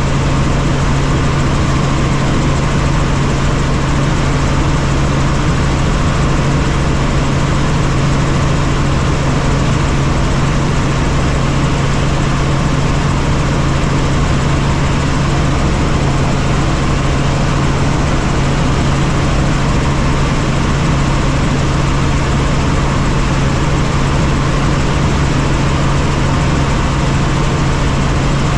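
Light helicopter in cruising flight, heard from inside the cabin: the engine and rotors make a steady low hum over a constant rush of noise, unchanging throughout.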